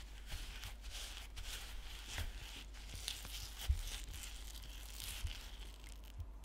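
Wire whisk beating egg yolks, sugar and rice starch in a glass bowl for pastry cream: repeated scraping, rustling strokes as the crumbly mix is worked into a thick paste. A few light knocks come through, the strongest about halfway through.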